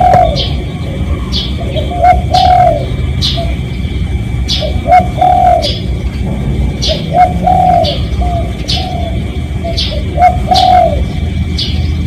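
Spotted dove cooing: phrases of two or three low, arched coos, repeating about every two and a half seconds. Short high chirps from another bird come between them, roughly every half second to a second.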